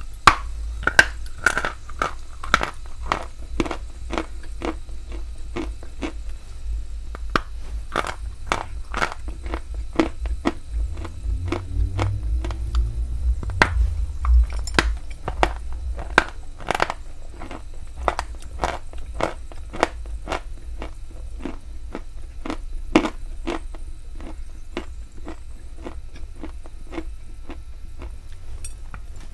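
Close-miked biting and crunching into a hard white chalky lump, with sharp cracks about one to two a second between bouts of gritty chewing. A low rumble swells and fades near the middle.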